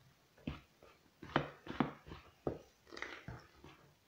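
A metal utensil stirring flour and water into bread dough in a plastic bowl, giving a run of irregular knocks and scrapes against the bowl, about two a second.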